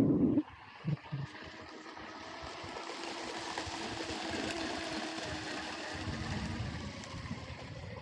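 Electric RC speedboat (Pro Boat Blackjack 24 with a brushless motor on 4S) running fast across the water, its hiss and motor whine building to a peak about four to five seconds in, then fading as it moves away. A loud droning sound cuts off about half a second in.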